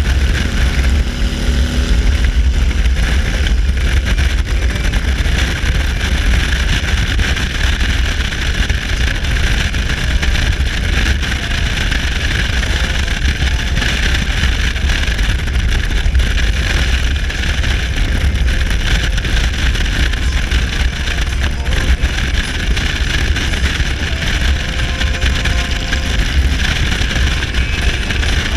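Motorcycle cruising at steady highway speed: a constant low engine drone under heavy wind rush on the microphone.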